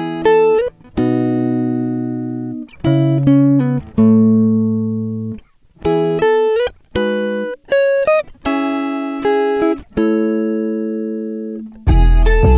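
Background music on a plucked guitar: single notes and chords, each struck and left to fade, with a fuller, deeper part coming in near the end.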